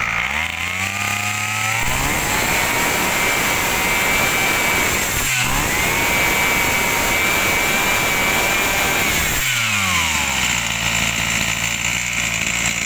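Tanaka 30cc two-stroke brush cutter engine revved from idle to full throttle, held high with a brief dip about five seconds in, then let back down to idle about nine and a half seconds in.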